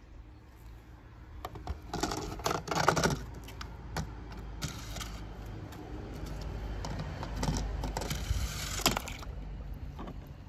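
Handling noise of a plastic toy bulldozer: clicks, rattles and light scrapes as it is turned in the hand and set down on a ramp, coming in clusters, busiest about two seconds in and again near the end.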